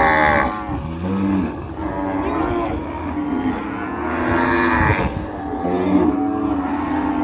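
Cows mooing several times in a row: a loud moo right at the start, shorter calls after it, and another loud moo about four to five seconds in.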